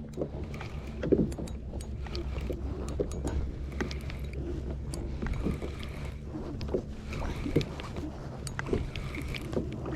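Fishing boat on the water: a low steady hum with scattered knocks and clicks throughout.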